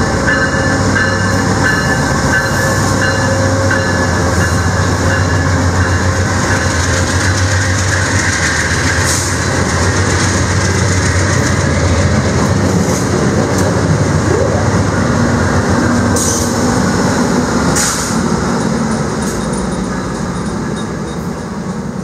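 VIA Rail GE P42DC diesel locomotive with its train of passenger cars rolling past close by. The engine hums steadily under load while the locomotive puts out dark exhaust, and the cars' wheels give a few sharp clicks over the rail joints around the middle and again a little later. The sound fades near the end as the train moves away.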